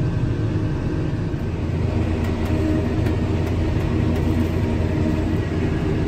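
Tractor engine running steadily under load, with an even drone, heard from inside the cab while driving and spraying through a standing crop.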